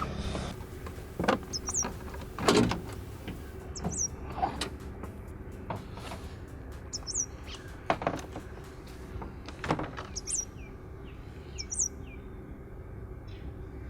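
A small bird chirping a short high call every second or two, over intermittent clicks and knocks from hand tools working on a car door. The loudest knock comes about two and a half seconds in.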